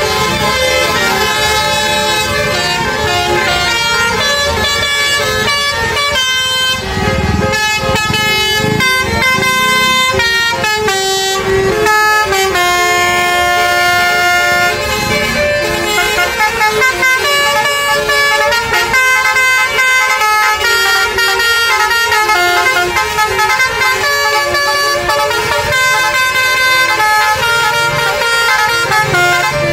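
Indonesian tour buses sounding basuri horns, multi-tone musical horns playing melodies note by note, one tune after another, with crowd voices underneath.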